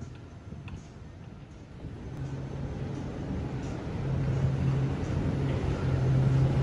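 Motor yacht's engines running as it cruises past below: a low, steady hum that grows louder from about two seconds in.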